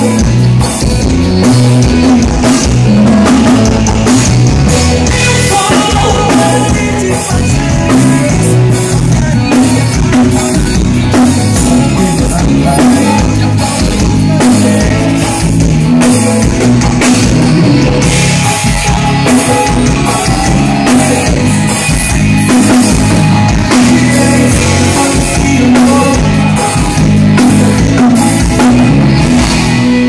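Live band playing loud, steady music: a drum kit, hand-played congas and an accordion, with a steady beat throughout.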